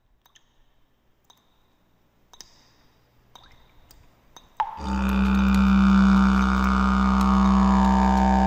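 Faint drip-like clicks about once a second, then about halfway through a deep, steady droning instrument starts loud in the background music, its overtones slowly sweeping downward.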